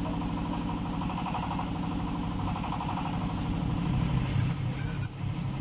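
Small motorcycle engine idling steadily in the workshop. A few faint metallic clicks come about four to five seconds in.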